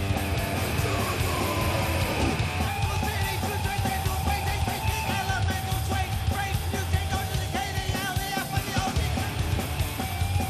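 A live band playing loud, distorted punk-metal on electric guitars, bass and drums, with yelled vocals.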